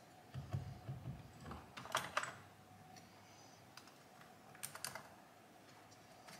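Faint plastic clicks and knocks as the stock steering wheel of a 2022 Camaro ZL1 1LE is worked off its column by hand: a run of them in the first two seconds, then a couple more near five seconds.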